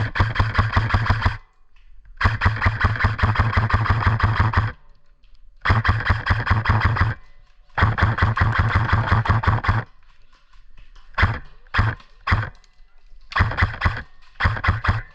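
Airsoft electric gun firing on full auto: four long bursts of rapid clicking, each one to two and a half seconds, then a few single shots and short bursts toward the end.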